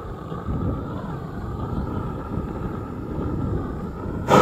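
Propane roofing torch burning with a steady roar and a faint wavering whistle over it, briefly louder near the end.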